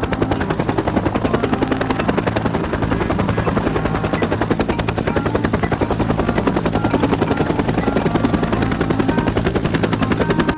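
Helicopter rotor blades chopping rapidly and evenly over a steady engine drone, a helicopter in flight.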